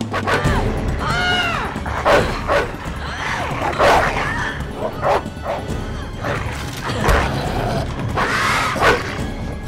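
Dog barking repeatedly in an attack, over a dramatic film score.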